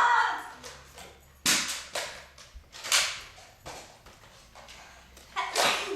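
A series of sharp snaps and smacks, a second or so apart, with a louder noisy burst at the start and another near the end, typical of spring-powered Nerf blasters firing and foam darts striking.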